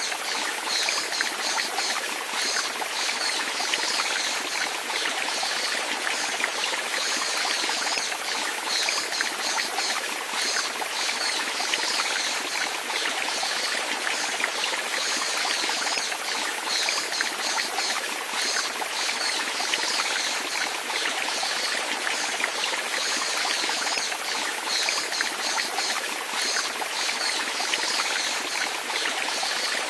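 Running water, like a stream flowing and trickling steadily.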